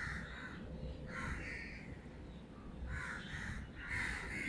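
Crows cawing in the background, several short harsh caws spaced irregularly.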